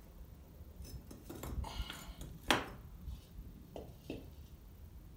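A fired clay bowl and bricks knocking and clinking as the bowl is set down on a stack of bricks and handled. There are several separate knocks, the sharpest about two and a half seconds in.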